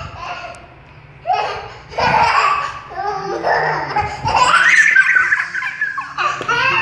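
A young child laughing in several bouts, the longest and loudest near the end.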